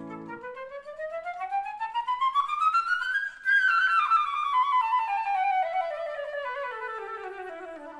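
Solo concert flute playing a fast run of notes unaccompanied, climbing steadily for about three seconds, breaking off briefly at the top, then stepping back down for about four seconds. A low piano chord fades out in the first half second.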